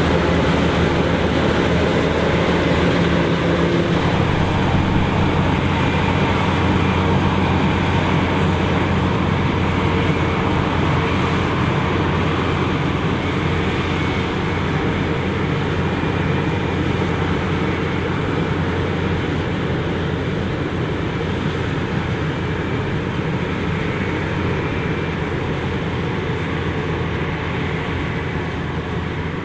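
John Deere 9500i self-propelled forage harvester running under load, chopping corn and blowing silage through its spout into a truck alongside: a loud, steady engine drone mixed with the rush of the cutterhead and blower. It gets slightly quieter near the end.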